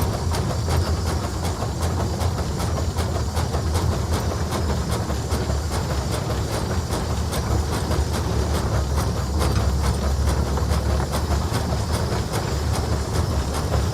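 Case 150 hp steam traction engine running under way: a quick, even beat of exhaust chuffs over a steady low rumble.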